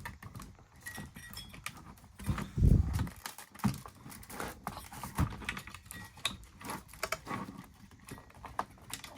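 Original Xbox console being handled during disassembly: scattered clicks and knocks of its case and parts, with a heavier thump between two and three seconds in.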